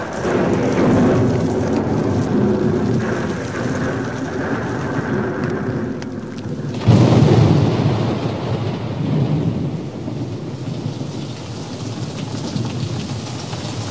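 Steady rushing, rain-like noise with a sudden loud low rumble about seven seconds in that slowly dies away, like a thunderclap.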